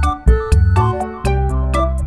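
Background music: synthesizer and keyboard notes over a bass line with a steady beat.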